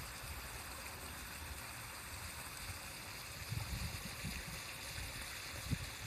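Steady outdoor hiss with low, uneven wind rumble on the microphone.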